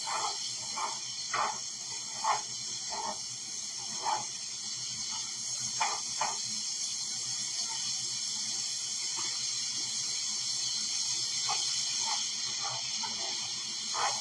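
Nuts frying in a pan with chili onion crunch and garlic: a steady sizzle with scattered pops and crackles, which thin out for several seconds in the middle.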